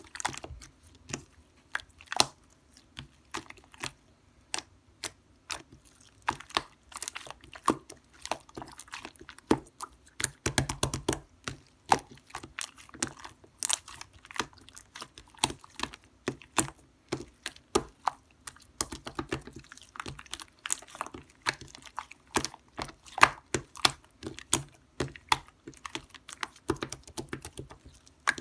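Slime being squeezed, poked and stretched by hand, giving a steady run of irregular wet clicks and pops, with a denser flurry about ten seconds in.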